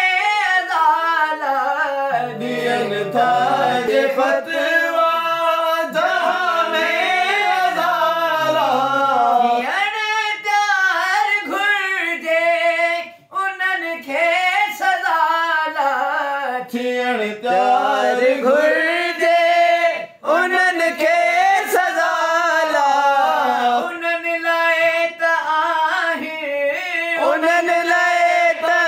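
A man singing solo without accompaniment in a high voice, holding long wavering, ornamented notes and pausing briefly for breath twice.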